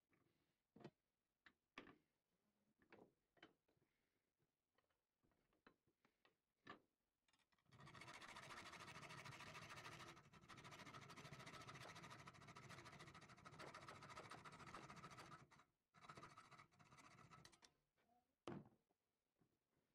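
Hand file rasping on a small steel pin clamped in a bench vise: light clicks and taps of handling, then about eight seconds of steady filing with a short break partway through. One sharp tap comes near the end.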